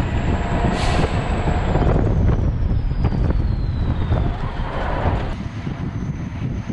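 Heavy S-300PM2 missile launcher vehicle driving over rough field ground: a loud, steady engine and running-gear rumble with occasional knocks. A faint high whine slides slowly down in pitch over the first few seconds.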